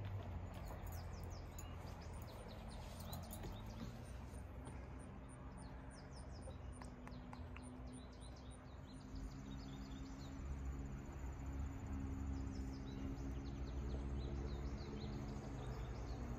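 Outdoor ambience of small birds chirping and calling repeatedly over a steady low rumble, with a faint high even pulsing through the first half.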